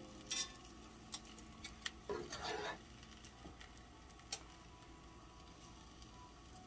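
Faint kitchen handling sounds over a cast-iron skillet: a few light clicks and knocks and a short rustle about two seconds in.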